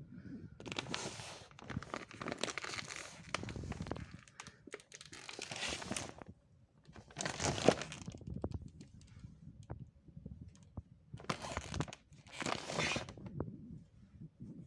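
Crinkling and rustling of material being handled, possibly plastic bags or packaging, in several bursts of a second or two, with scattered light clicks between them.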